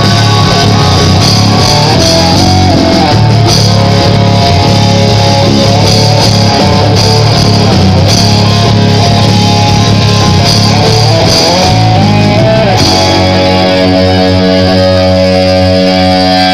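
Loud background music with guitar and drums; about 13 seconds in it changes to sustained held chords.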